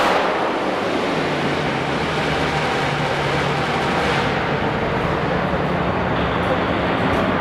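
Diesel engine of an open-class pulling garden tractor running hard under load, a loud steady drone. The high, hissy part of the sound falls away about four seconds in.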